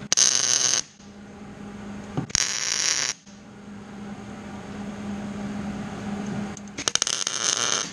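Three short MIG tack welds on the square tubing of a tube-frame chassis. Each is a burst of crackling hiss lasting under a second: one at the start, one a little over two seconds in and one near the end, the last one sputtering. Between them a steady low hum continues.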